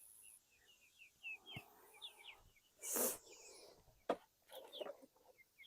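Birds chirping faintly with many short calls, with a brief rustle about three seconds in and a sharp click about a second later.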